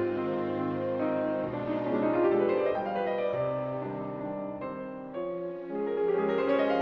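Background music: slow piano with sustained strings.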